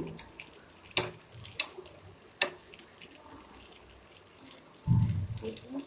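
A spatula scraping and tapping against a nonstick frying pan as masala is spread over taro patties, with a few sharp clicks of the spatula on the pan and a dull low thump about five seconds in.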